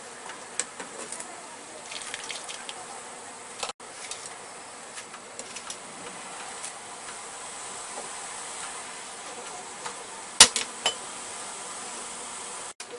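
Broth boiling in a steel wok, a steady bubbling hiss with scattered small pops and clicks. About ten seconds in comes a single sharp click, the loudest sound.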